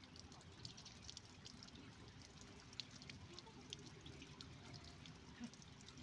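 Near silence: faint outdoor background hiss scattered with many short, high ticks and chirps, likely distant small birds.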